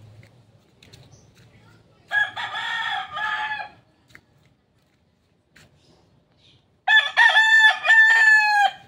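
Gamecock rooster crowing twice: a quieter crow about two seconds in, then a much louder one near the end.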